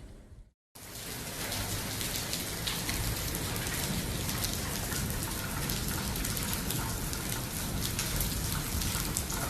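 Steady rain falling, a dense hiss of many drop impacts. It begins after a brief dropout about half a second in.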